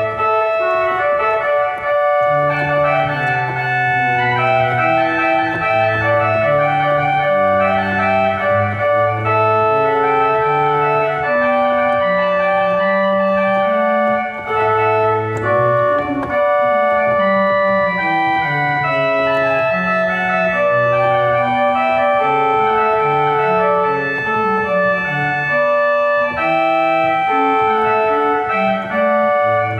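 Organ music: several held notes at once over a bass line that moves step by step, played steadily without pause.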